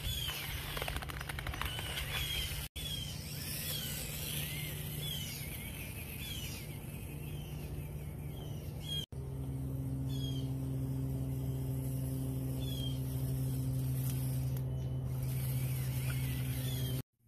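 Small electric motor and gears of an Axial SCX24 Ford F-150 RC crawler running with a steady hum, with short high bird chirps repeating about once a second. The sound cuts out briefly twice, where the clips are joined.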